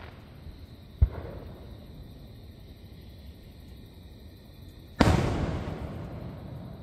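Two distant aerial firework shells bursting. A short sharp boom comes about a second in, then a louder boom about five seconds in that rolls on and fades over a second and a half.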